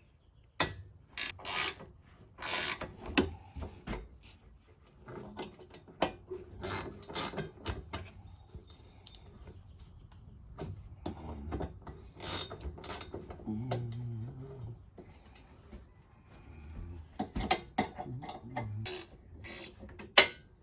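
Irregular sharp metal clicks and clanks of hand tools and chainsaw-mill hardware as the clamp screws on the saw bar are loosened with a wrench.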